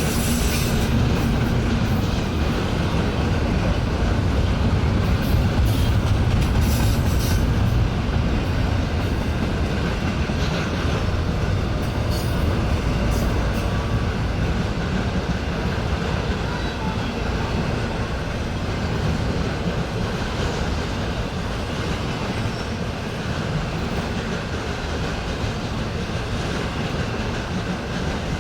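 Freight cars of a BNSF intermodal train rolling past, a steady loud rumble of wheels on rail with scattered clicks and clatter, a little louder in the first several seconds.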